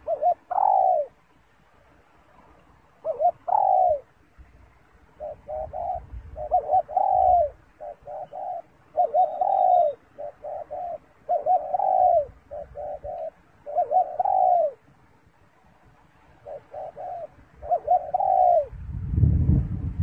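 Spotted dove cooing in repeated phrases, each a few quick short notes followed by a longer note that rises and falls. There are two single coos at the start, then a steady run of phrases after a pause. A low rumble comes in near the end.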